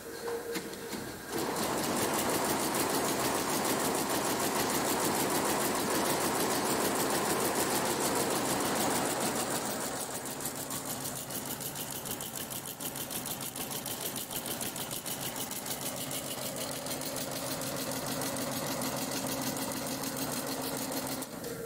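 Multi-head sequin embroidery machine stitching, its needles running in a fast, steady rhythm of strokes. It is louder in the first half and somewhat quieter after about halfway.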